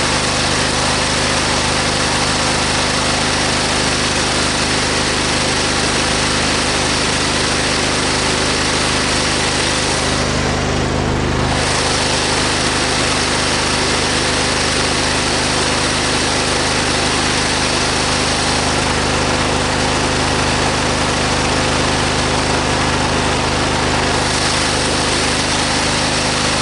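Briggs & Stratton V-twin lawn tractor engine running steadily while spray is worked around the intake to test for a vacuum leak, with a brief shift in its sound about ten seconds in. The note holds with no lasting change, which the owner takes to mean the intake manifold and its gasket are good.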